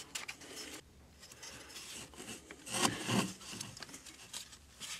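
Rubber serpentine belt rubbing and scraping as it is worked by hand around the engine's pulleys. The rustling is uneven and gets louder for a moment a little past halfway.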